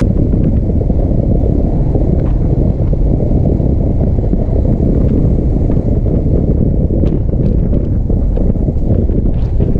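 Heavy wind rumble buffeting the microphone on a moving motorcycle, a loud, steady low rush with the ride's vehicle noise underneath and a few faint ticks.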